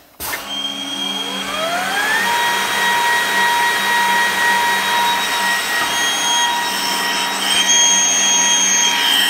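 Milling motor of a Vitap Orbiter edge-banding machine switched on and spinning up, its whine rising over about two seconds, then running at a steady high whine with an airy hiss. A further higher whine joins about eight seconds in.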